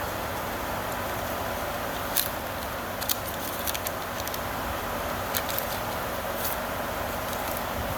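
Scattered light clicks and taps from hands working with tape and cable insulation, over a steady whooshing background noise.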